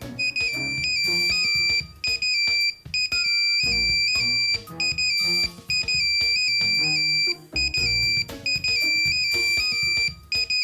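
A cell phone ringtone plays a short, upbeat musical phrase with a beat, repeating over and over.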